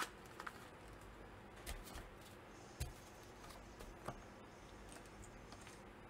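Faint handling noises from soldering preparation: a few light, scattered taps and clicks as solder wire and tools are handled on a silicone work mat.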